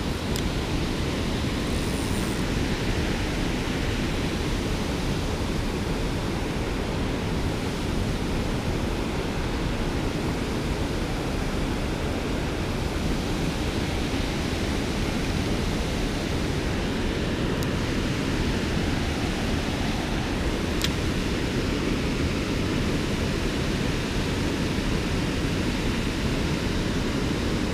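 Steady rushing of creek water spilling over a small waterfall, an even unbroken noise.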